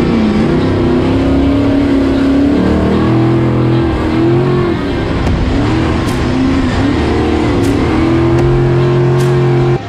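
Class 6100 desert race truck's V8 engine heard close up from an onboard camera, revving up and down through the turns of a dirt course. The pitch dips several times as the throttle is lifted and picks up again, then holds high near the end.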